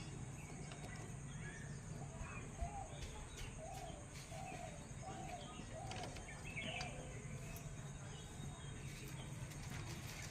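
A bird calling faintly in the background: a run of short repeated notes, about two a second, through the middle few seconds, over a low steady hum and a few faint clicks.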